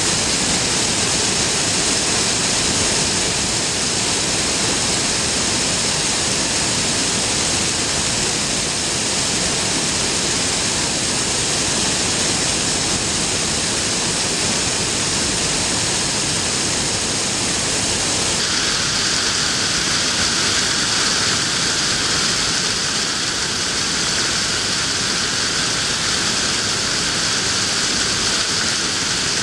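Waterfall: a steady rush of falling water, its sound turning abruptly brighter and hissier about two-thirds of the way through.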